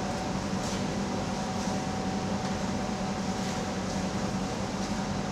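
Steady background hum and hiss of room noise, with a constant low hum and a fainter steady tone. A few faint soft ticks come through it.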